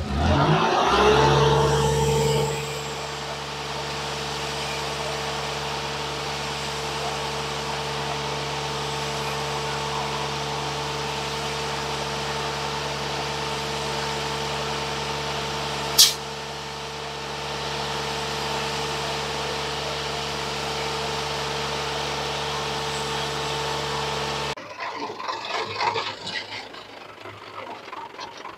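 Isuzu concrete mixer truck's diesel engine speeding up at the start, then running steadily at raised speed to turn the drum while concrete discharges down the chute, with one sharp click partway through. Near the end it cuts off abruptly, giving way to quieter, irregular knocks and scrapes.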